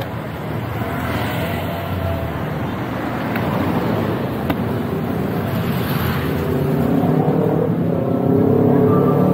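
Yamaha Aerox S scooter riding along with traffic around it: a steady mix of engine and road noise, the engine note rising and getting louder over the last couple of seconds as it speeds up.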